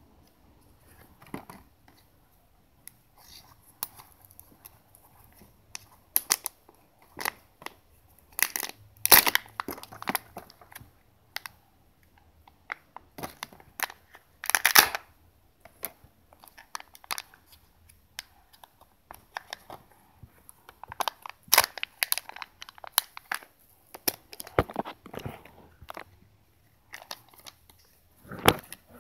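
Foil wrapper of a Kinder Surprise egg crinkling and tearing as it is peeled off by hand, in irregular crackling bursts with a few sharper snaps. The plastic toy capsule clicks as it is handled and opened near the end.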